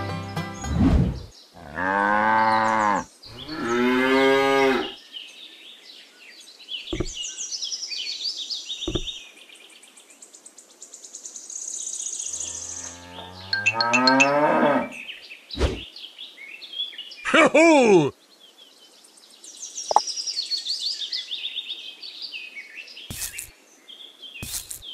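Cattle mooing: four long moos, two back to back at the start, then a longer one falling in pitch and a shorter one later.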